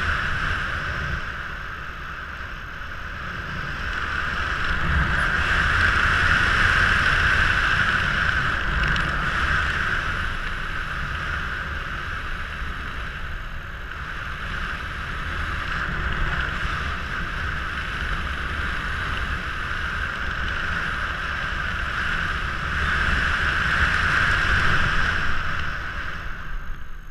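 Steady wind rushing over a head-mounted camera while flying an open parachute canopy, swelling louder around six to eight seconds in and again shortly before the end.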